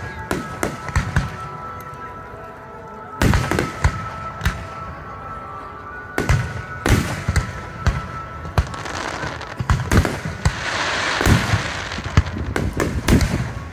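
Aerial firework shells bursting in an irregular run of sharp bangs and deeper booms, with heavy reports about three seconds in and again around six to seven seconds. A rushing noise swells between the bangs about ten to twelve seconds in.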